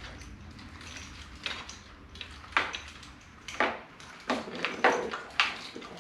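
Irregular sharp metallic clinks and knocks, about six of them, from small metal parts and tools being handled during hands-on work on a motorcycle.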